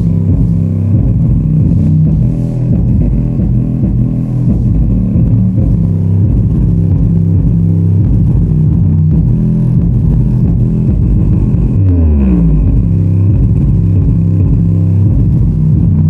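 Bass-heavy music played loud through a pair of 8-inch subwoofers, one of them a Magnetz, driven by a small 4440 amplifier through a subwoofer preamp. About twelve seconds in a deep bass note slides down in pitch.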